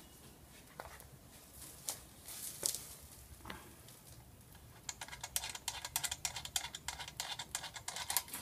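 Light clicks and rattles of a hose plug and brass quick-connect fitting being handled at the machine's pressure switch: a few scattered clicks at first, then a quick, busy run of clicking over the last three seconds or so.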